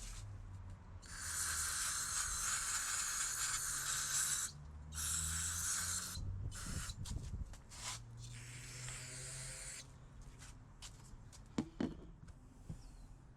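Aerosol can of carburetor cleaner spraying in several bursts, the longest about three seconds, followed by a couple of light clicks near the end.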